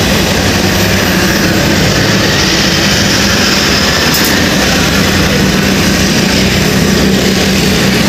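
Crane-suspended vibratory pile hammer driving a steel sheet pile into the ground: a loud, steady low drone with several held tones.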